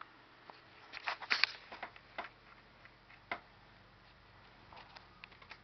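Handling noise: a cluster of light clicks and knocks about a second in, then a few scattered single clicks, over a faint steady hum.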